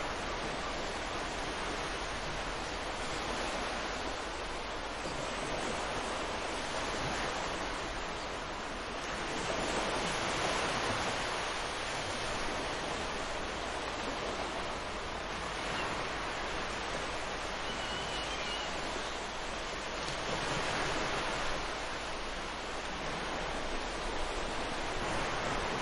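Ocean surf washing onto a shore, a steady rush of water that swells and eases every several seconds.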